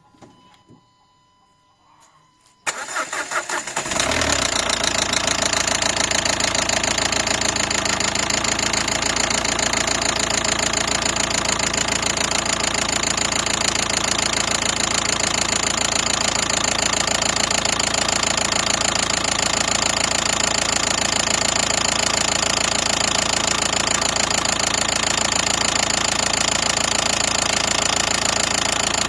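Nissan Qashqai 1.5 dCi diesel engine starts up about three seconds in and then runs steadily with a fast, even knock. The knock came on suddenly and is heard evenly across the whole engine and all injectors, with its cause not yet found.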